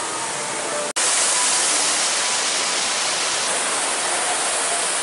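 A steady, even rushing hiss. It drops out for a moment about a second in, then comes back a little louder.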